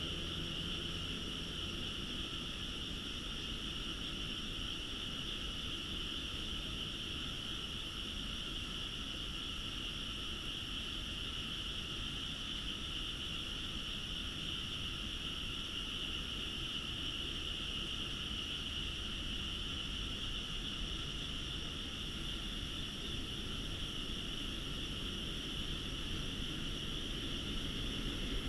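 Steady, unbroken chorus of frogs from nearby rice paddies at night, over a low background rumble.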